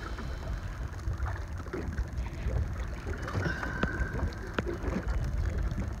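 Wind rumbling on the microphone in an open fishing boat, with scattered knocks and splashes as a walleye is landed in a landing net. A brief high steady tone sounds about three and a half seconds in.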